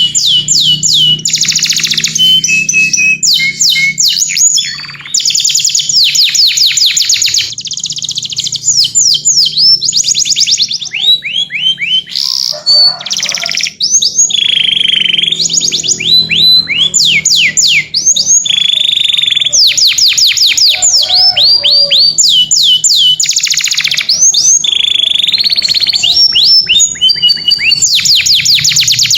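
Canary singing: long fast trills of repeated notes that each sweep sharply downward, broken by a few held whistled notes, phrase after phrase with hardly a pause.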